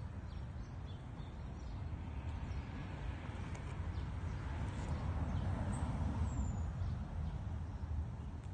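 Outdoor ambience: a steady low rumble with a faint hiss over it, and one short high bird chirp about six seconds in.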